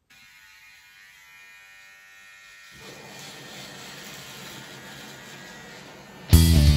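Electric hair trimmer running, a steady buzz that turns rougher from about three seconds in as the blades cut into the hair at the side of the head. Loud guitar music cuts in near the end.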